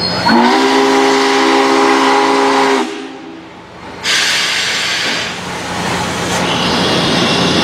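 Union Pacific 844 steam locomotive's chime whistle blowing one blast of several notes together, sliding up in pitch as it opens and cutting off after about two and a half seconds. About a second later comes a loud burst of steam hiss that eases off within about a second, followed by a steady rushing sound.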